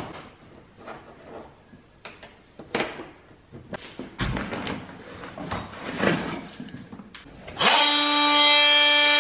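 Scattered knocks, thuds and rustling as tools are handled and dug out of a tool bag. About three-quarters of the way in, a Milwaukee cordless oscillating multi-tool starts and runs with a loud, steady buzz as its blade cuts into the skirting board.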